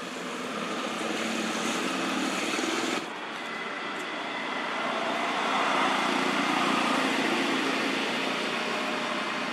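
Steady engine-like drone with hiss. It changes abruptly about three seconds in, swells louder about halfway through, then eases off.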